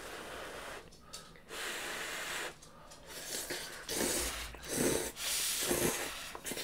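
Two people slurping ramen noodles with broth: several long, airy sucking slurps, one about a second and a half in and a run of them from about three seconds on.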